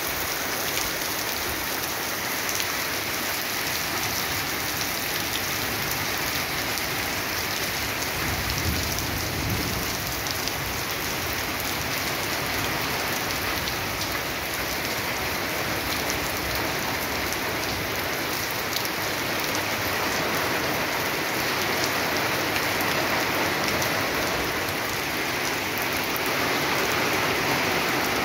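Heavy rain falling steadily, splashing into standing water on a paved yard.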